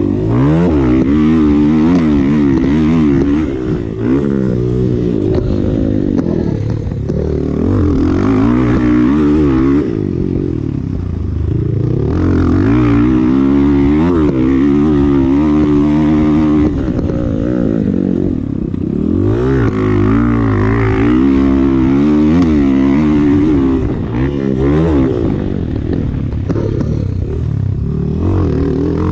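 Motocross bike engine heard from onboard, revving hard with its pitch climbing and dropping again and again as the rider accelerates, shifts and rolls off around the dirt track.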